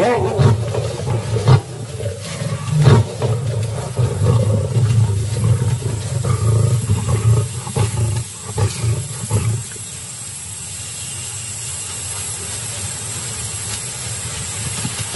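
Lions snarling and growling in a fight, a pride attacking a young male at a kill. The growling is loud and ragged with scattered knocks, then stops about ten seconds in, leaving a quieter steady background noise.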